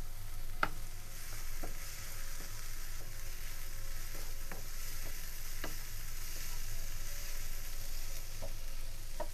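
Sliced mushrooms and onion, with cornstarch just stirred in, sizzling in a non-stick frying pan as a wooden spoon stirs them. There is a steady hiss of frying, with a scattering of light knocks and scrapes from the spoon against the pan.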